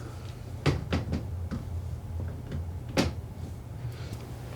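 A few light knocks and clicks from plastic drain pipe and tools being handled: two about a second in and a sharper one about three seconds in, over a low steady hum.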